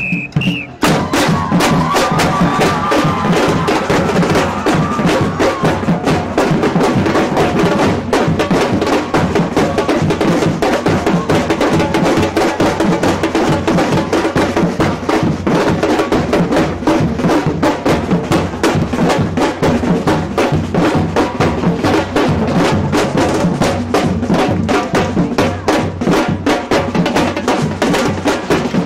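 Samba percussion troupe drumming a loud, fast, unbroken rhythm over deep bass drums.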